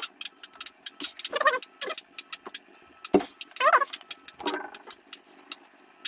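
Rubber handgrip being worked on a motorcycle handlebar by hand: a run of sharp small clicks and taps, with a few short squeaks that bend in pitch, the clearest near the middle.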